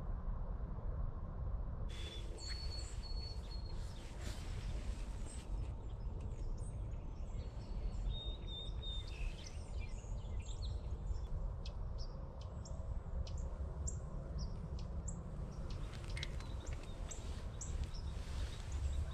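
Birds calling at first light: many short chirps and whistles, starting about two seconds in, over a steady low rumble.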